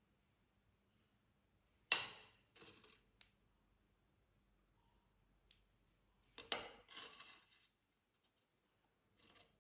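A steel spoon clinking and scraping against a clay bowl while scooping thick set yogurt. There is a sharp clink about two seconds in, followed by a short scrape, and a second run of scraping and clinks a little after the middle.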